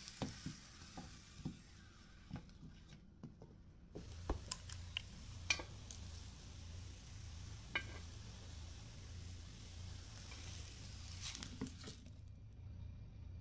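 Grilled radish wedges being moved from a hot frying pan onto a plate with chopsticks: scattered light clicks and taps of the chopsticks and wedges against the pan and plate, over a faint sizzle from the pan.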